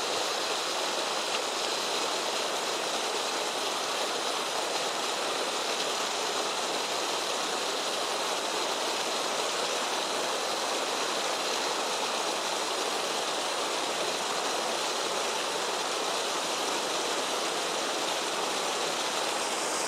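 Stream water rushing steadily, with a faint steady high whine above it.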